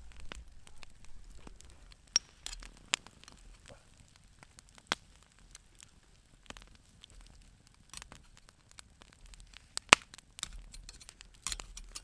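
Wood campfire crackling: irregular sharp pops and snaps from the burning wood, with the loudest pop late on.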